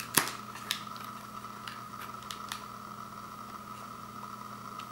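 Plastic Blu-ray case being handled and opened: a sharp click just after the start, a lighter click soon after, then a few faint ticks.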